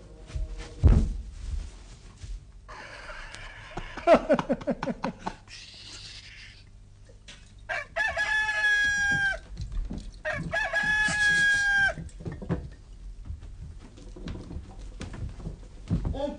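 A rooster crows twice, each crow about a second and a half long. Before the crows come a loud thump about a second in and a burst of men's laughter.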